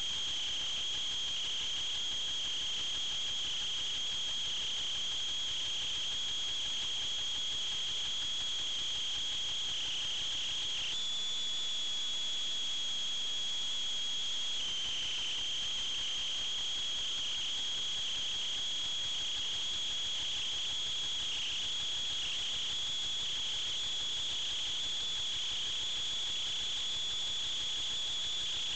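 Steady high-pitched whine from an FPV model aircraft's motor, stepping up slightly in pitch about eleven seconds in and back down about four seconds later, over a faint hiss.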